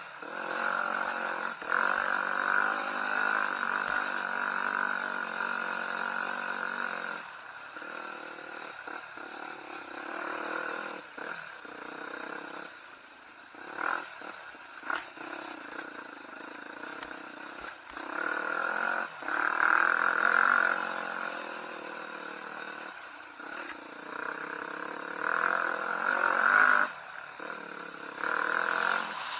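Enduro motorcycle engine running under changing throttle, steady at first and then rising and falling, with louder bursts twice near the end.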